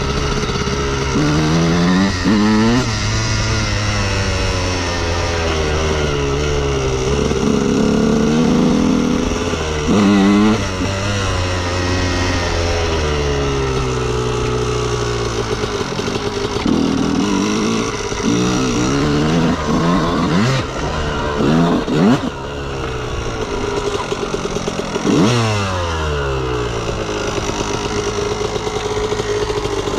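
Honda CR125R's 125 cc single-cylinder two-stroke engine revving up and dropping back over and over as the motocross bike is ridden, its pitch climbing sharply several times. A few sharp knocks come through about two-thirds of the way in.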